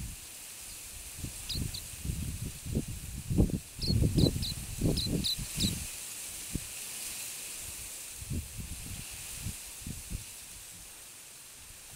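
Silvereye (tauhou, waxeye) giving short, high chirps: a pair, then a quick run of about six a few seconds later, over a steady hiss. Irregular low thumps and rumbles, loudest in the first half, sound close to the microphone.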